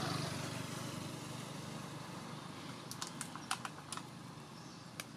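A motor vehicle engine humming steadily in the background, loudest at the start and then fading away. About three seconds in comes a quick run of sharp crackles, and one more near the end, as young macaques paw and pull at a plastic bag.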